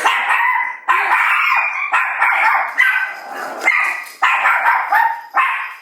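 Small dogs barking loudly and repeatedly, about one bark a second: alarm barking at someone arriving at the house.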